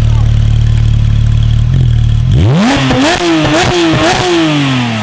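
Porsche 991 GT3 RS naturally aspirated flat-six with a full Akrapovic exhaust (headers and 200-cell race catalysts) idling, then revved hard at standstill about two seconds in. It climbs to the raised 7,500 rpm standstill limit, bounces there a few times, and falls back toward idle near the end.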